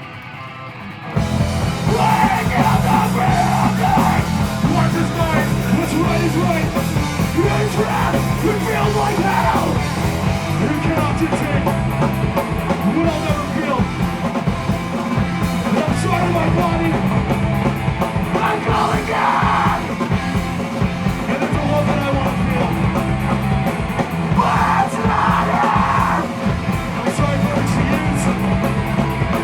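Loud live punk/heavy rock band playing, with the full band coming in hard about a second in: distorted guitars, bass and drums, with yelled vocals breaking in now and then.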